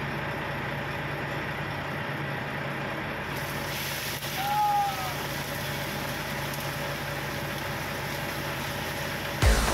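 Oil sizzling in a frying pan on a portable gas stove, the hiss picking up about three seconds in as food goes into the hot pan, over a steady low engine hum. A brief high squeak near the middle.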